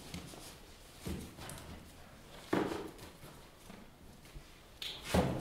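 A few separate knocks and thuds of books being set down and shifted inside a wooden box, about one, two and a half, and five seconds in.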